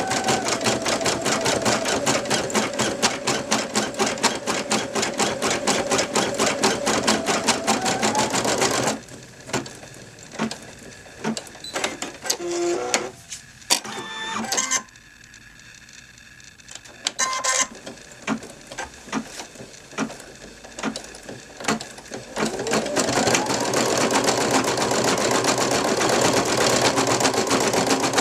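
Brother NV2600 computerized embroidery machine stitching at speed, with a fast, even needle rhythm. About nine seconds in it stops, and scattered clicks and a few short tones follow while it is idle. Near the end it starts again with a rising whine as it speeds back up.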